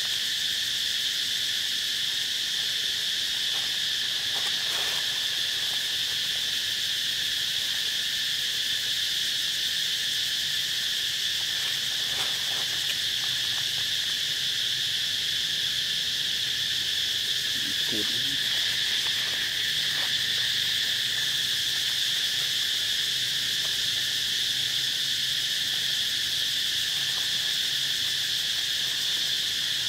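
A steady, unbroken chorus of insects, with a few faint short sounds now and then.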